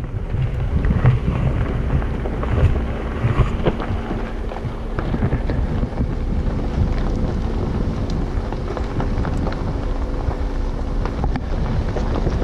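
Jeep Wrangler JLU crawling slowly downhill on a loose gravel and rock trail: tyres crunching and popping over stones, with a steady low engine hum and wind rumbling on the microphone.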